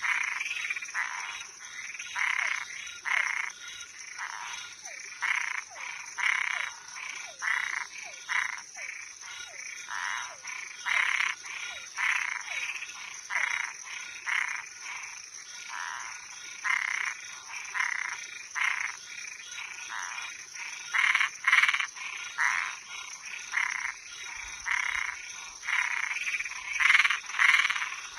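A chorus of frogs and treefrogs: short croaking calls repeated over and over, roughly one every half second to second, over a steady high-pitched hum.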